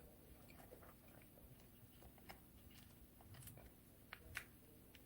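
Near silence: room tone with a few faint, short clicks and small handling noises.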